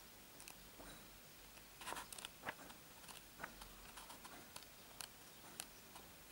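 Faint rustling and soft ticks of glossy comic-book pages being turned by hand, a few quiet flicks about two to three and a half seconds in.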